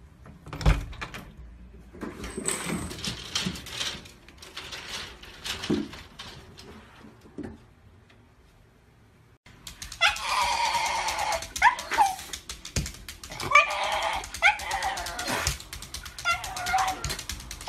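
Some knocks and rustling at first; then, from about ten seconds in, a Shiba Inu dog whining in several bouts of drawn-out high cries that slide up and down in pitch.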